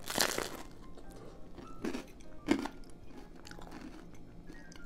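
A person biting into a slice of bread topped with eggplant caponata, with a crunch just after the start, then chewing with two louder crunches about two seconds in.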